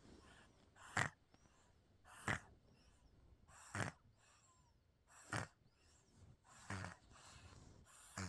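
A 3.5-month-old baby girl snoring like a grown man: short, sharp snores about every one and a half seconds, six in all, with faint breathing between.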